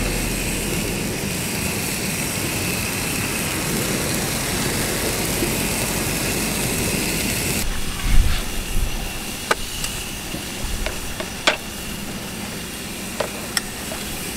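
A slice of pork belly sizzling in a frying pan, a steady hiss. About eight seconds in the sizzle drops away, and a thump and a few sharp clicks follow.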